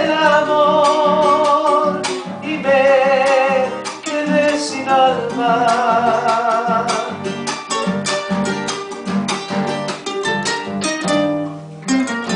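Two acoustic guitars played together, plucked and strummed, with a man's voice holding long notes with vibrato over the first half or so.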